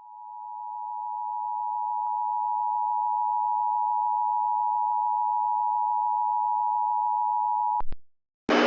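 Emergency Alert System attention signal: the steady two-tone alarm of about 853 and 960 Hz, fading in and then held for nearly eight seconds before cutting off with a click. A loud burst of hissing noise starts right at the end.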